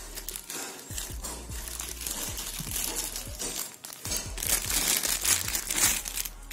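Clear plastic wrapping crinkling as it is handled and pulled off a new wall light switch, loudest near the end.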